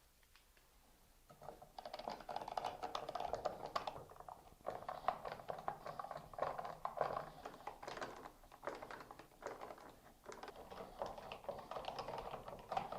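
Phillips screws being driven back into a plastic shower-seat swivel base with a hand screwdriver: a run of rapid small clicks and scrapes in several bursts with short pauses, starting about a second in.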